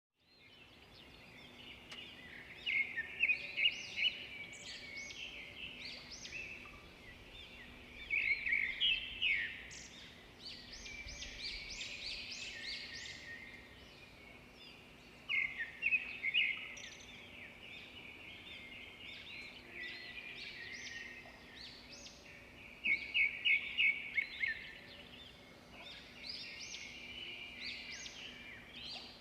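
Many small birds chirping and chattering together, with louder runs of quick repeated notes every several seconds.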